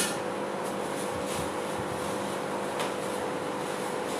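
Steady hum and hiss of a running fan, with a couple of faint light clicks, one at the start and one about three seconds in.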